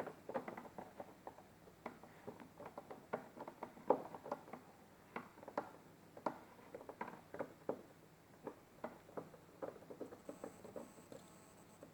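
Light, irregular clicks and taps of a screwdriver and hands on plastic dashboard trim as self-tapping screws are undone, a few small knocks a second.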